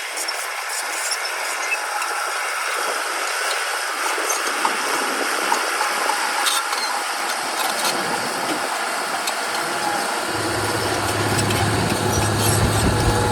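Diesel engine of heavy earthmoving machinery running, with scattered light rattles and clanks. A deep engine rumble comes in about ten seconds in.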